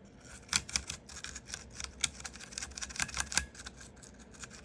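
Scrubbing at a missed spot on a mechanical keyboard: irregular scratchy strokes mixed with sharp clicks, starting about half a second in.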